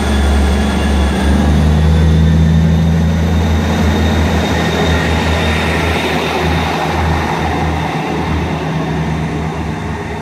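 ScotRail Class 158 diesel multiple unit pulling out of the station, its underfloor diesel engines drumming as it accelerates away. The engine note steps up about a second and a half in, then the sound slowly fades as the train draws off.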